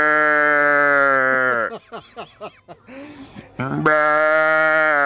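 A man's vocal imitation of a cow's calf bawling into a microphone: one long, steady call that falls away about a second and a half in, a few short broken sounds, then a second long call beginning near the end.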